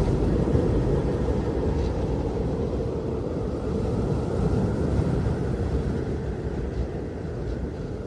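A steady low rumble of outdoor noise with no clear pitch, easing off slowly toward the end.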